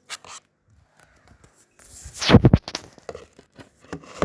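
Handling noise from the recording phone or camera being moved and repositioned: scraping and rubbing against the microphone with a few knocks, loudest in a burst of strokes about halfway through.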